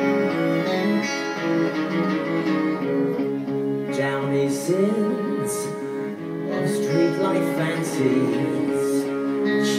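Live string ensemble with violin and cello playing an instrumental passage between sung lines: steady droning chords, joined about four seconds in by wavering, vibrato-laden lines.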